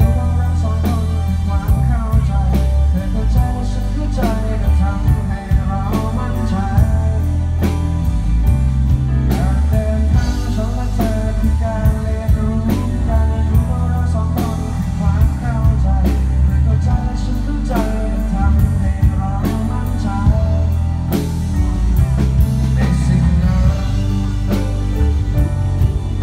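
Live band playing through a PA: guitars, bass guitar and drum kit, with a heavy bass and a steady drum beat.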